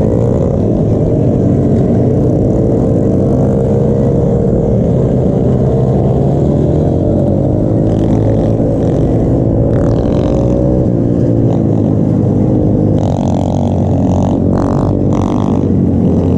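Small pit bike engines running together in a riding pack, the nearest one loudest, its pitch rising and falling with the throttle over a low rumble. Several short, higher-pitched sounds come through in the second half.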